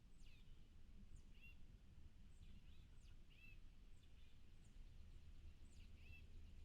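Faint birdsong outdoors: short, high chirps sweeping down in pitch, about two a second, over a low steady rumble.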